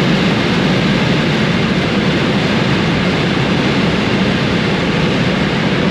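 Steady wind and road noise inside the cabin of a Honda Civic Type R FN2 running flat out at about 237 km/h, over its K20 2.0-litre four-cylinder engine held high in the revs.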